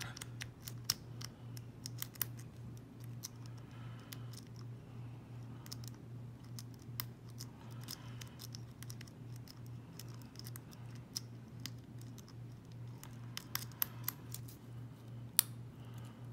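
Lock pick scraping and clicking against the pins inside a Corbin padlock's keyway during single-pin picking, a run of faint irregular metallic ticks with a sharper click near the end.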